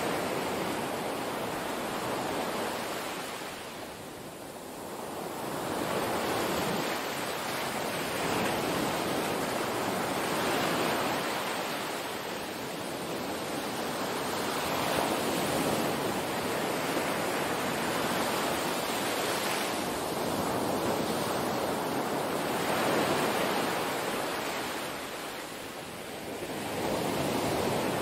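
Small waves washing up on a sandy beach, the surf rising and falling every several seconds.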